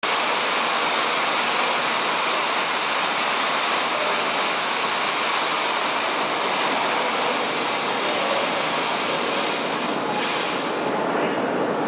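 Smoke generator blowing out dense artificial smoke with a steady, loud hiss that eases slightly about ten seconds in.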